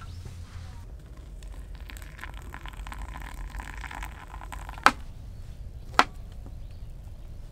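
Two sharp knocks about a second apart, the loudest sounds here, over a low steady background rumble and faint clatter.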